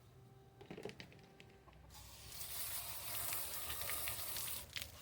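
Water spraying from a hose in a steady hiss that starts about two seconds in, after a few light handling clicks.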